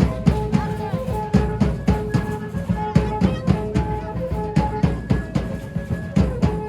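Live music for a danza de pluma: a drum beats fast, steady strokes, about four a second, under a simple repeating melody of held notes.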